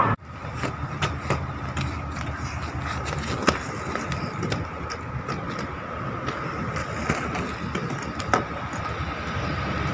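Inline skate wheels rolling over rough asphalt: a steady rolling noise with scattered clicks and knocks.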